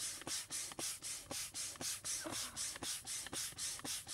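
Hand pump inflating the first chamber of an Intex Challenger K2 inflatable kayak, worked in quick, even strokes, each a short hiss of air, about five a second. The chamber is about 90% full.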